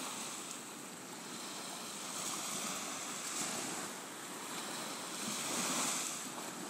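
Small sea waves washing onto a beach: a steady surf hiss that swells twice, most strongly near the end.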